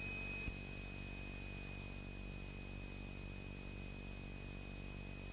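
Faint steady drone of a Beechcraft Sundowner's piston engine heard through the cockpit intercom audio, under hiss and a thin steady high whine. A soft click about half a second in.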